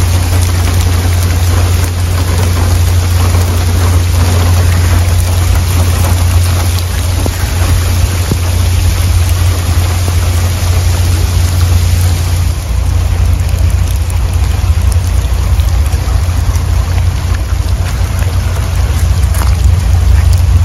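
Steady rushing of rain-swollen floodwater and falling rain, with a heavy low rumble underneath. The hiss gets quieter about twelve seconds in.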